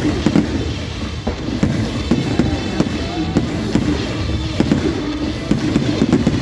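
Aerial fireworks shells bursting overhead in a rapid, continuous barrage of bangs and crackles over a low rumble.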